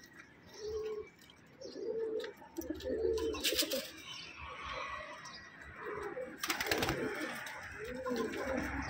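Domestic pigeons cooing repeatedly, low and rolling, with a couple of brief sharp noises about three and a half and six and a half seconds in.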